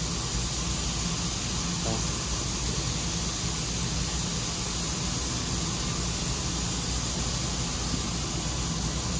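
Steady hiss of background air noise with a low hum underneath, unchanging throughout.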